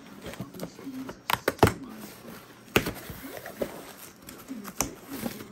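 A package being opened by hand: the packaging handled and pulled open, with several sharp clicks and knocks.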